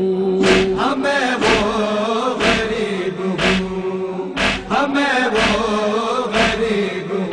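Voices chanting a Shia noha lament in long, wavering held notes, with a sharp beat about once a second.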